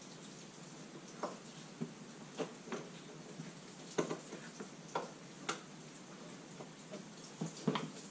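About a dozen light clicks and taps at irregular spacing, the loudest near the end: hand work freeing a car's bonnet release catch and cable.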